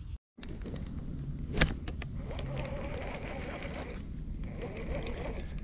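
Wind rumbling on the microphone while a hand works a baitcasting rod and reel. There is one sharp click about a second and a half in, followed by light, irregular ticking from the reel.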